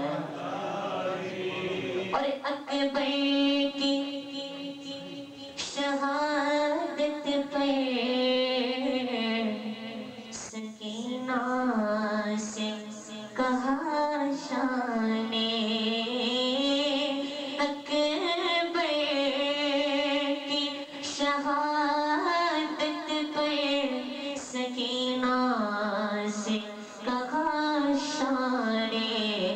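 A young man's solo voice singing a devotional melody unaccompanied into a microphone. He sings long, held, ornamented phrases that bend in pitch, with brief breaks for breath between them.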